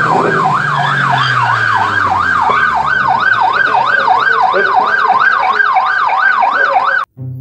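Police car siren in a fast yelp, its pitch rising and falling about three times a second, cutting off suddenly near the end.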